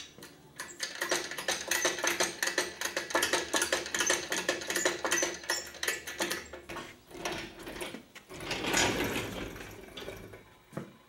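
Rapid metallic clicking and rattling from a shop engine hoist being worked by hand, several clicks a second, with the engine hanging from it; the clicking gives way to a rougher, noisier rattle near the end.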